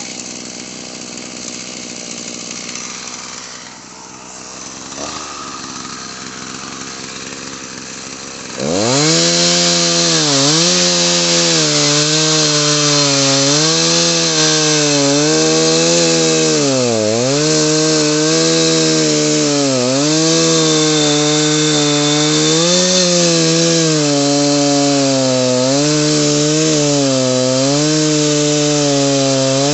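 Chainsaw cutting a dead tree. After a quieter stretch, the engine revs up sharply about a third of the way in and runs at full throttle. Its pitch dips and recovers again and again as the chain bites into the wood.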